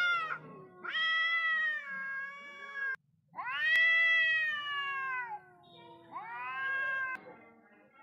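Two cats, a tabby and a black-and-white cat, yowling at each other in a face-off: long, drawn-out wavering calls one after another, each rising and then sagging in pitch, the loudest about halfway through. This is the threat yowling of cats squaring up before a fight.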